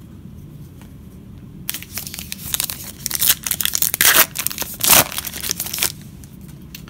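A paper trading-card pack wrapper being torn open and crinkled. It makes a dense run of ripping and rustling from about two seconds in to about six seconds in, loudest around four and five seconds in.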